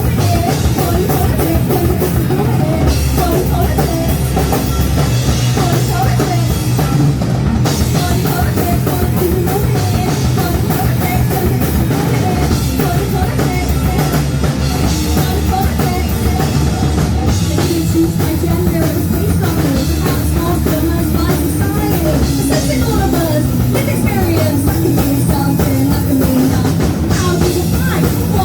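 A live punk rock band playing loudly, with a drum kit driving the song.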